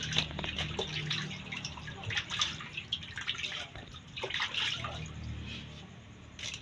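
Fish being washed by hand in a basin of water: irregular splashing and sloshing as the fish are rubbed and turned over.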